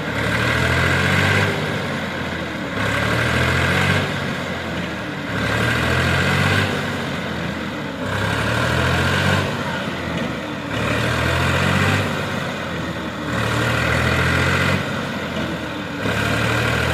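Tractor engine running, its sound swelling and falling in a regular cycle about every second and a quarter.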